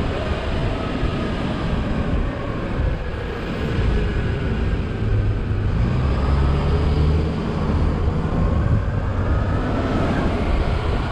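Open-top double-decker bus driving slowly, its engine running with a steady low rumble and a note that rises and falls a little, heard from the open upper deck.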